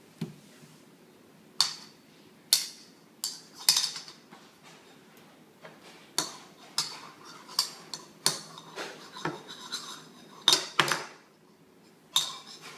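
Metal utensils clinking and knocking against pots and pans: about fifteen sharp, irregular strikes, each with a short ring.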